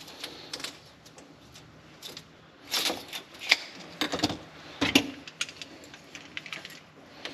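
Irregular light clicks and knocks of PEX pipe and brass fittings being handled and pushed together during a dry fit, with a few louder knocks in the middle.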